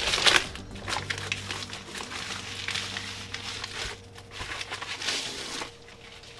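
Packaging crinkling and rustling as it is handled, in several short bursts with the longest near the end.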